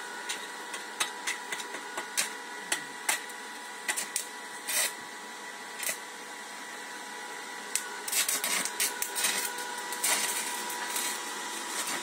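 Electric arc welding on a steel frame: a steady hiss with a faint thin whine, broken by scattered sharp crackles and pops that thicken into continuous crackling from about eight seconds in.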